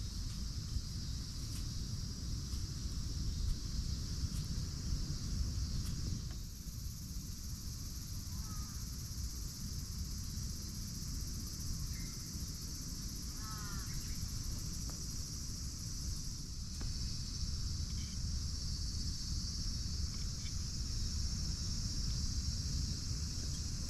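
Steady outdoor chorus of insects, crickets or similar, over a low rumble, with a few brief bird calls about eight and thirteen seconds in and occasional faint clicks.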